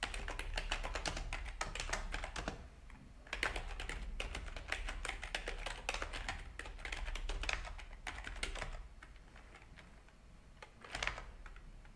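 Typing on a computer keyboard: a fast run of key clicks, a short pause about two and a half seconds in, then another long run. After that it goes quieter, with a few more keystrokes near the end.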